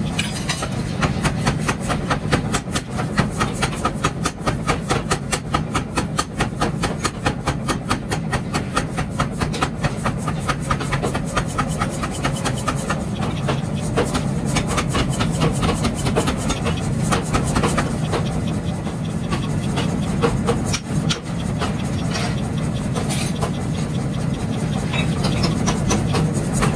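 Belt-driven mechanical power hammer pounding a red-hot steel bar being forged into a pickaxe: rapid, regular blows over a steady low hum of the running machine.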